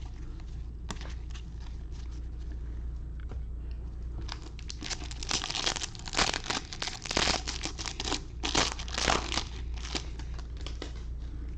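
Foil trading-card pack wrapper being torn open and crinkled by hand: scattered clicks at first, then a dense run of irregular crackling in the middle, over a low steady hum.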